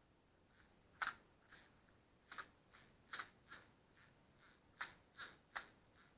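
A series of faint, irregular sharp clicks and light taps, about a dozen.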